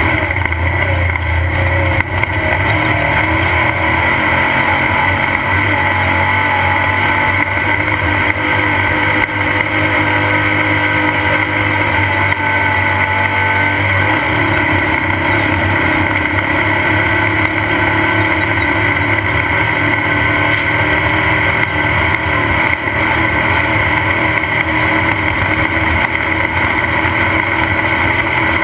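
Off-road race car's engine running steadily, heard from on board the vehicle.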